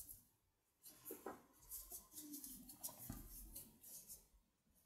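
Near silence, with faint, scattered rustles and soft ticks of a metal crochet hook working cotton yarn.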